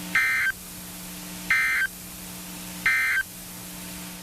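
NOAA Weather Radio's SAME digital end-of-message signal: three short, buzzy data-tone bursts about a second and a half apart, closing the severe thunderstorm warning. A low steady hum runs underneath and drops out during each burst.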